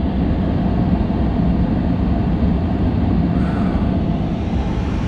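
Pickup truck engine running, heard from inside the cab: a steady low rumble with a rushing hiss over it.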